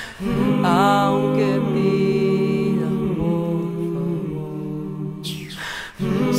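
Layered a cappella voices holding harmonized notes over a low hummed drone, with a higher line sliding between pitches. About five seconds in the chord drops away into a breathy, noisy vocal swoop that falls in pitch, and the harmony comes back in just before the end.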